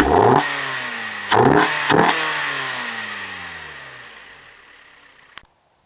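2009 Hyundai Sonata 2.4-litre four-cylinder engine revved with three quick throttle blips, the revs falling slowly back after each. A click about five seconds in, then the sound cuts off suddenly.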